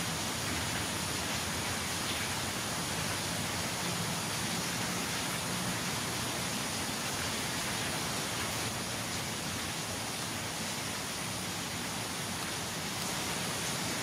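Steady, even hiss of outdoor forest ambience with no calls or distinct events, and a faint thin high whine running through it.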